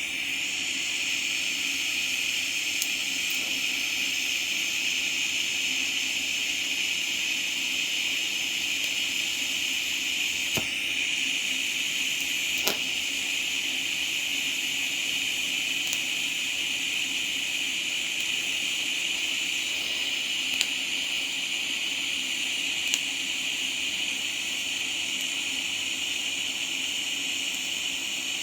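TIG welding arc burning steadily: a continuous hiss with a faint hum, with a few faint ticks along the way.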